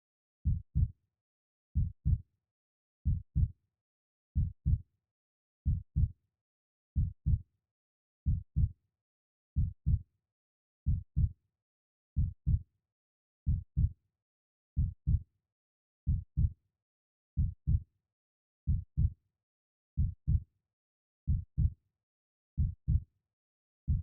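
Slow, steady heartbeat: a low double thump (lub-dub) about every 1.3 seconds, around 45 beats a minute.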